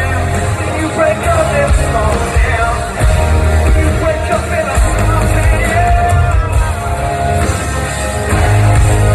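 Live band playing a country-pop song with a heavy bass and drums, heard from the audience, with singing over it.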